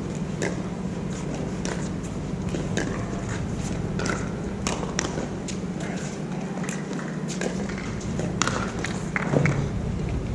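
Pickleballs popping off hard paddles on the surrounding courts: irregular sharp pops, several a second at times, over a steady low hum and faint distant voices.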